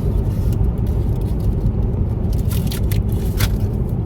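Steady road and engine rumble of a moving car heard from inside the cabin, with a few light clicks about two and a half to three and a half seconds in.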